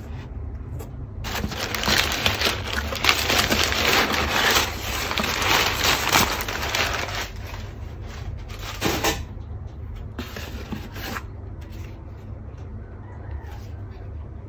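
Crumpled brown kraft packing paper crinkling and rustling as it is pulled out of a cardboard box. It is loud for several seconds, with a few shorter rustles afterwards, over a steady low hum.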